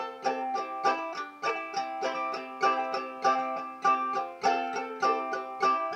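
Banjo ukulele played in a simple clawhammer strum: evenly spaced plucked strums with the strings ringing between them, in a steady rhythm.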